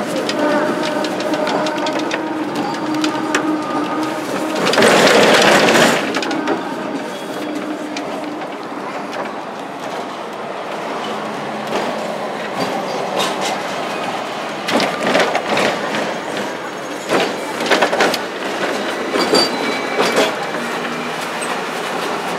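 Hong Kong double-decker tram running along street track, heard from on board: steady rolling noise with a faint hum. About five seconds in there is a louder rush of noise for a second or two, and the second half brings a run of sharp clicks and knocks from the running gear.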